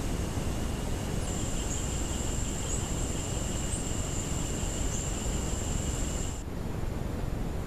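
Insects trilling steadily at a high pitch over a constant hiss. The trilling cuts off suddenly a little after six seconds in.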